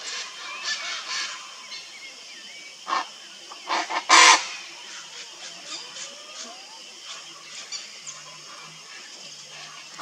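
Chaco chachalacas calling, a series of short calls with a loud cluster of three from about three to four and a half seconds in and fainter calls scattered around them.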